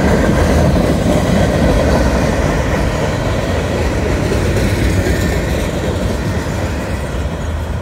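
Freight train boxcars rolling past at close range: a steady rumble of steel wheels on the rails. It gets a little quieter over the last few seconds.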